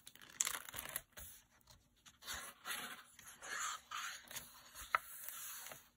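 A hardcover picture book being opened and its pages turned by hand: uneven rustling and crinkling of paper and cover in several stretches, with one sharp tap about five seconds in.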